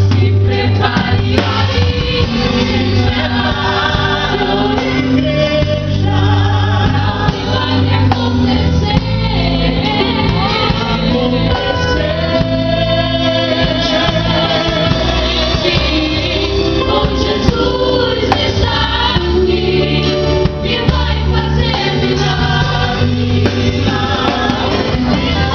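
Christian gospel worship song: a choir of voices singing over instrumental backing with a steady bass line.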